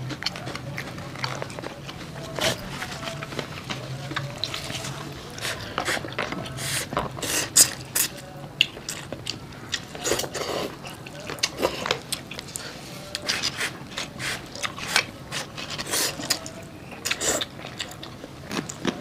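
Two people eating close to the microphone: wet slurps of curry instant noodles in soup, smacking and chewing of fried chicken, as a run of short irregular mouth sounds. A low steady hum sits under the first few seconds.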